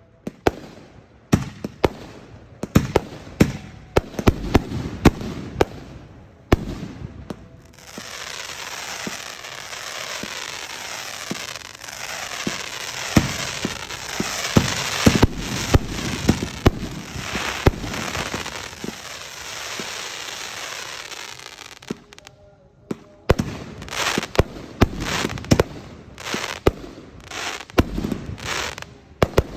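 Fireworks display: a string of sharp bangs, then from about eight seconds a dense crackling with bangs over it that thins out a little after twenty seconds, followed by more separate bangs.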